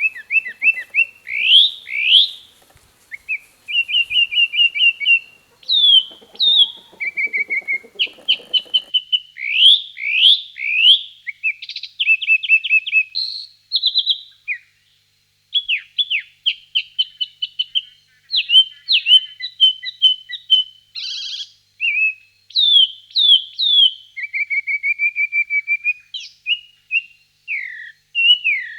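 A bird singing a long, varied song: runs of repeated whistled notes, quick downward slurs and short trills, phrase after phrase with brief pauses between.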